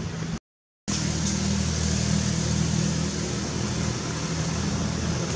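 Steady low hum of a running engine under an even hiss. It cuts out completely for about half a second shortly after the start, then resumes unchanged.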